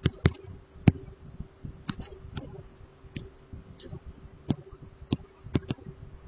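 A stylus tapping and clicking on a tablet as handwriting is written: about a dozen sharp, irregular clicks, over a faint steady hum.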